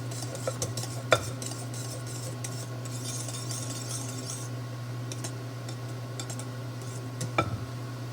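A whisk stirring thick, hot custard in a batter bowl, with light clinks and scrapes against the bowl and two sharper knocks, about a second in and near the end.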